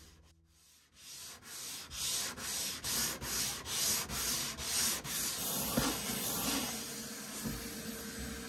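Hand sanding block rubbing back and forth over the cedar strips inside a canoe hull, about two strokes a second, starting about a second in. Near the end the strokes give way to a steady hiss with a faint hum as a shop vacuum hose picks up the sanding dust.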